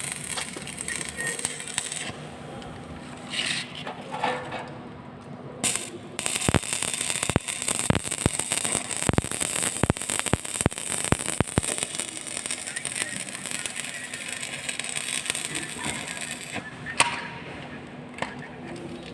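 Electric arc welding crackling and sizzling steadily, with a run of sharp clicks and pops in the middle and one louder crack near the end.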